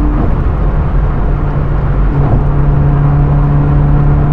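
Hyundai Veloster N's 2.0-litre turbocharged four-cylinder running at highway speed, heard from inside the cabin over steady road and wind noise. Its steady hum drops away about a quarter second in and comes back about two seconds in.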